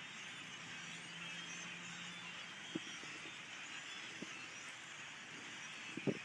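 Dense, continuous chorus of a large flock of black birds calling, many overlapping squeaky chirps and squeals. A few short low thumps break in, the loudest near the end.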